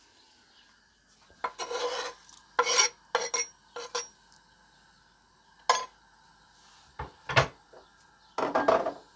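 A knife scrapes chopped tarragon off a wooden chopping board into a stainless steel soup pot, in several short rasping strokes. There are a few sharper knocks in between as the board meets the pot's rim.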